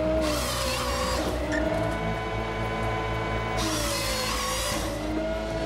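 HyPro 755 tractor-mounted harvester at work: the tractor engine and hydraulics run steadily, the engine dipping in pitch under load, while the harvester head's chain saw cuts through a spruce stem in two bursts, the first just after the start and the second about three and a half seconds in.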